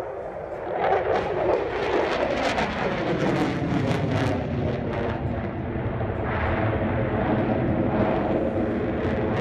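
Military fast jet flying overhead: loud, continuous jet engine noise that swells about a second in, with a slowly shifting pitch as the aircraft moves.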